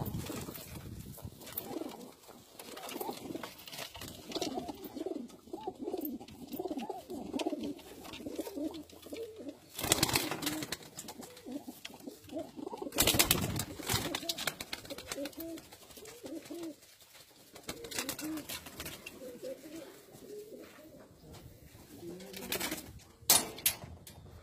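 Domestic breeder pigeons cooing, several birds calling over one another in a low, wavering, repeated coo. A few louder, short scuffling noises cut in about ten and thirteen seconds in.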